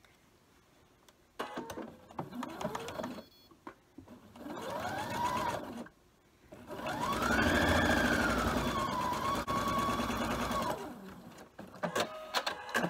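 Electric sewing machine stitching a seam in three runs: two short ones, then a longer run of about four seconds in which the motor's whine rises as it speeds up and then holds steady. A few clicks follow near the end.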